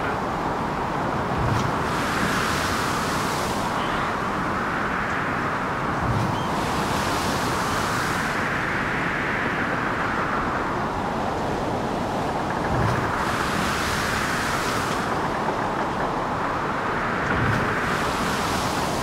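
Wind and rough sea: a steady rush with a wave surging and hissing about every five seconds, each surge opening with a low thud.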